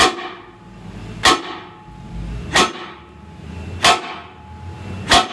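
Hammer striking steel in five evenly spaced blows about 1.3 seconds apart, each blow ringing briefly, during hand repair work on a truck axle tube.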